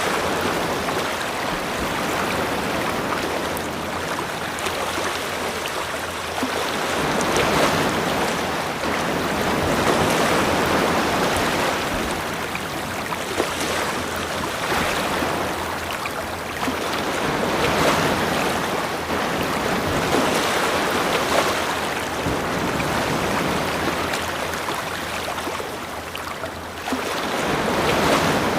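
Waves washing in, a continuous rushing that swells and eases every few seconds.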